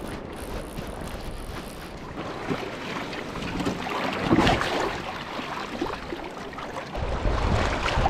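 Wind buffeting the microphone over lake water, with a louder burst of rough noise about four seconds in and a stronger gust rumbling near the end.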